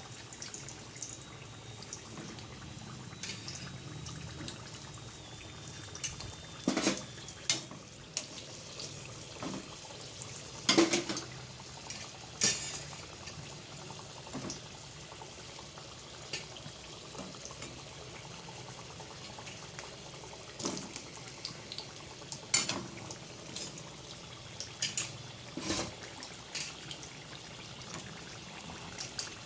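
Sweet potato chunks frying in oil and melting sugar in a pan over low heat: a steady sizzle, with scattered sharp clinks and knocks of a utensil against the pan.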